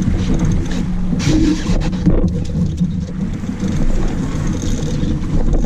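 Noise aboard a sailboat during a jibe: a steady low hum under wind and water noise, with brief clatters of rigging about one and two seconds in.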